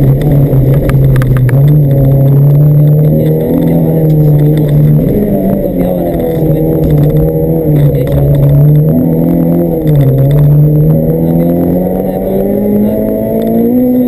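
In-car sound of a Honda Civic rally car's B16B 1.6-litre four-cylinder VTEC engine driven hard. The revs rise and drop several times as the driver changes gear through a tight turn, then climb again near the end.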